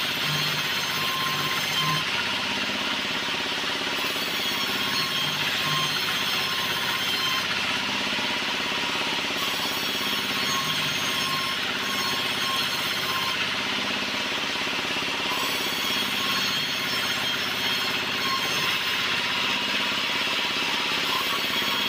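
Large vertical band saw running steadily while a log is fed through it, the blade cutting lengthwise through the wood with a continuous even noise over the machine's running.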